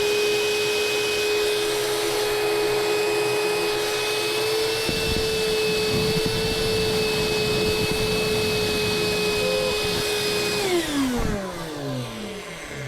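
Wet/dry vacuum running steadily with a high motor whine as it sucks the remaining water out of a toilet. About ten and a half seconds in it is switched off and winds down, its pitch falling.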